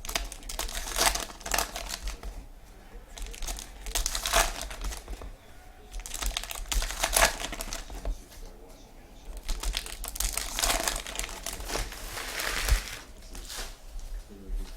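Trading-card pack wrappers crinkling and tearing as packs are opened, in short bursts every few seconds.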